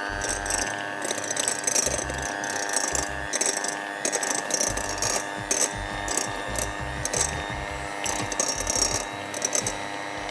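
Electric hand mixer running at one steady speed, a high motor whine, its beaters beating oil and brown sugar in a glass bowl with an irregular clatter.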